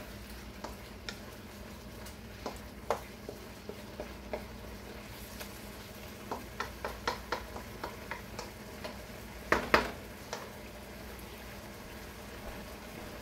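Wooden spatula stirring noodles and vegetables in a wok, with scattered clacks against the pan over a steady low sizzle. A quick run of clacks comes about six to eight seconds in, and the loudest, a double knock, about ten seconds in.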